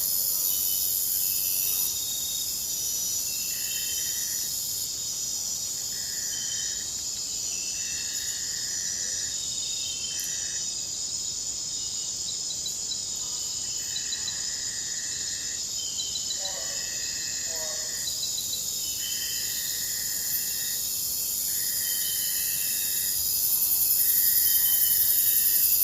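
Forest insect chorus: dense, steady high-pitched trilling of crickets and other insects, with a separate chirp pulsing about every second and a half. A few faint short falling calls sound about two-thirds of the way in and again at the end. The whole chorus grows louder near the end.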